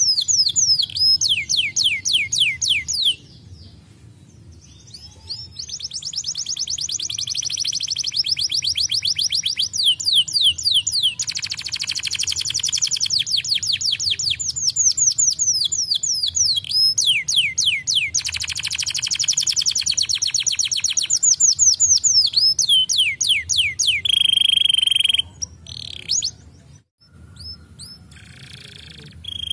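Domestic canary singing: long runs of rapid repeated notes and quick falling sweeps, with a short break about three seconds in and a steady held whistle-like note near the end.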